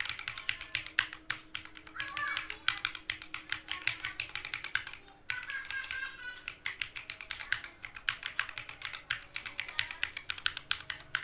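Arisu mechanical keyboard being typed on fast: a steady rapid stream of key clacks, several a second, with a brief pause about five seconds in.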